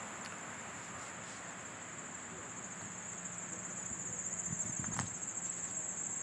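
Crickets trilling steadily: one continuous high-pitched trill over a soft background hiss, with a faint click about five seconds in.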